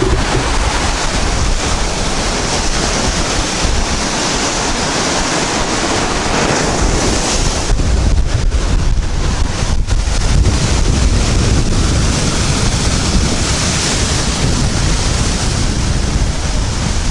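Rough Baltic Sea surf breaking on the shore and against wooden groynes, with heavy wind noise on the microphone. The sound is a loud, steady rush with no distinct events.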